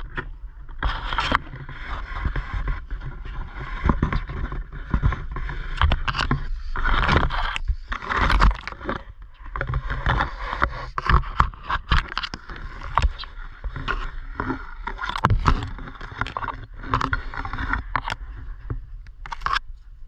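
Leaves and twigs rustling and scraping close to the microphone in irregular crackles, over a steady low wind rumble.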